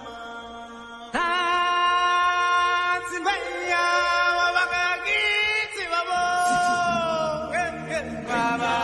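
Singing voices holding long, drawn-out notes that slide from one pitch to the next, getting much louder about a second in.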